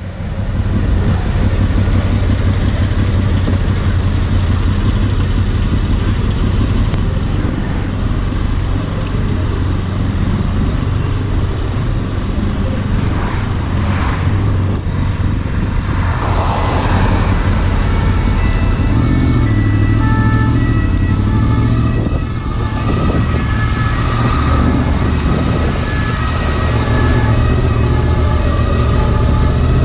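Motorcycle engine and wind rumble heard from the rider's helmet in slow motorway traffic. A bit over halfway through, an ambulance siren comes in, its tones switching back and forth between pitches.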